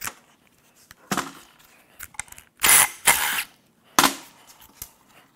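Tool work unbolting a sensor from a Nissan Leaf electric drive unit: several short, harsh bursts of noise, the loudest a pair in the middle and one about four seconds in.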